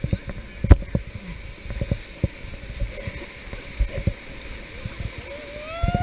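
Whitewater rapids rushing and churning around an inflatable raft, with irregular low thumps and knocks as the raft and paddles work through the water; one sharp knock comes under a second in.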